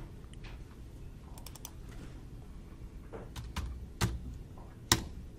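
Computer keyboard keys being typed: a few separate key clicks, sparse at first and clearer in the second half, with the sharpest click about five seconds in.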